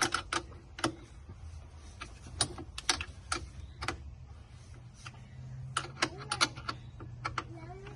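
Short runs of sharp metallic clicks from a wrench tightening a nut on a car battery kill switch terminal.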